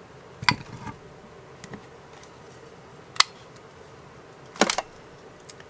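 A handheld plastic circle paper punch clicking as it is handled: three separate sharp clicks, the last a quick rattle of two or three.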